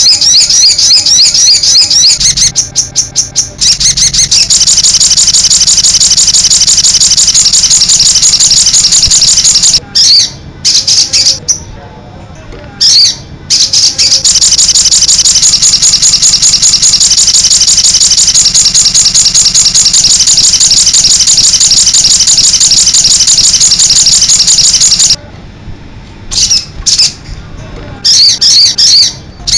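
Sogon bird singing vigorously: long, loud runs of rapid, high repeated notes, broken by short pauses about ten and thirteen seconds in and again near the end.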